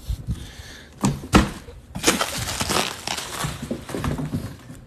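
Cardboard box knocked and scrabbled in as a cat jumps into it: a few sharp knocks, the loudest about a second and a half in, then a couple of seconds of scraping, crinkling cardboard.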